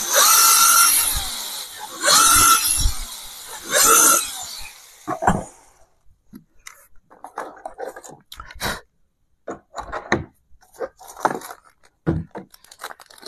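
Bosch 12V cordless drill boring into a laminated wooden door in three short bursts, its motor whining over the grind of the bit. For the rest of the time there are only scattered light clicks and knocks of door-handle hardware being handled.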